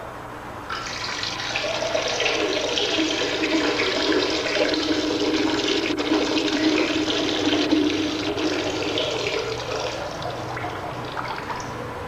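A urine stream splashing into the water of a toilet bowl. It starts about a second in, is strongest through the middle and tapers off near the end.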